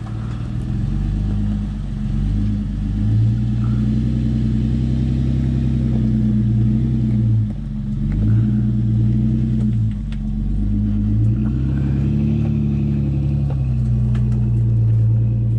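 Toyota 4Runner engine running at low speed, its revs rising and falling several times as the truck is worked over the trail, with a few faint clicks.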